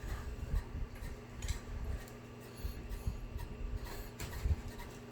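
Scattered faint knocks and scrapes of a cardboard shipping box being handled while scissors work at its tough packing tape, over a steady low hum.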